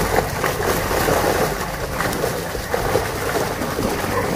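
A crowded mass of tilapia thrashing in a tightened seine net in shallow pond water: continuous dense splashing with many sharper individual splashes.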